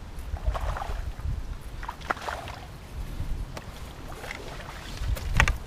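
Wind buffeting the microphone, with soft splashes of water and a sharp knock near the end.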